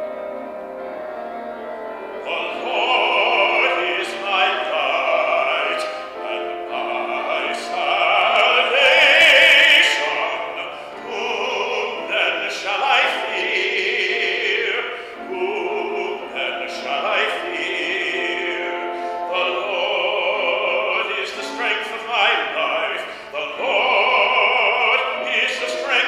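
A man singing a solo with instrumental accompaniment. The accompaniment plays alone at first, and the voice comes in about two seconds in, holding long notes.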